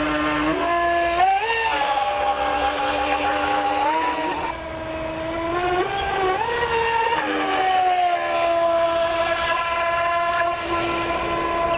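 Feilun FT011 RC speed boat's water-cooled brushless motor whining at speed. The pitch climbs and drops several times as the throttle changes, then settles lower near the end.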